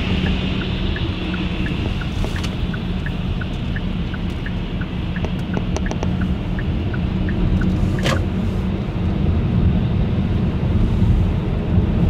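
Steady road and engine rumble heard inside a moving car. Over it, the turn-signal indicator ticks about three times a second with an alternating tick-tock, then stops near the end. A single sharp click comes about eight seconds in.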